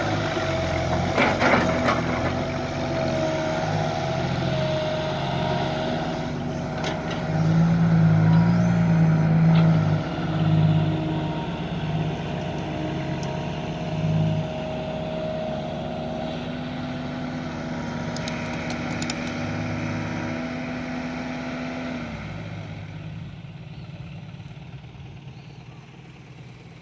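Diesel engine of a Kobelco SK120 Mark 3 excavator running under load while it digs and loads soil, swelling louder in surges several times. About 22 seconds in the steady engine hum cuts off sharply and the sound fades away.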